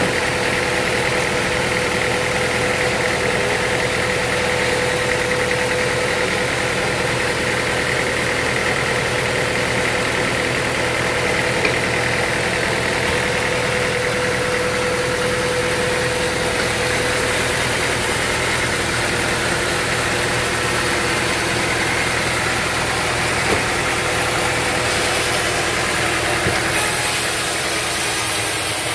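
Sawmill machinery running steadily, a continuous mechanical hum with a steady whine over it.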